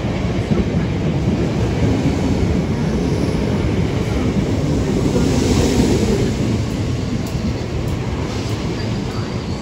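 Class 456 electric multiple unit drawing in alongside the platform, its wheels and traction motors running past close by as a steady rumble. The rumble swells and brightens about halfway through as the cars pass nearest.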